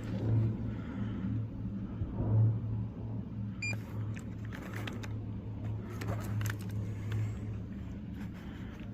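Steady low mechanical hum, with scattered light clicks and knocks of handling over it.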